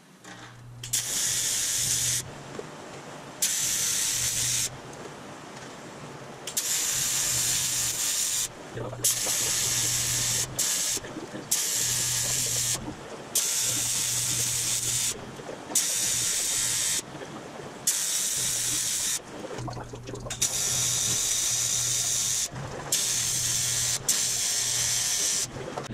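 TIG welding arc on aluminium body sheet: about a dozen on-off bursts of hissing buzz, each one to two seconds long, as tack welds are laid along a panel seam.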